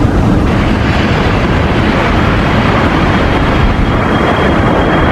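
Jet airliner engine noise, a loud, steady rush with no breaks; a faint high whine joins near the end.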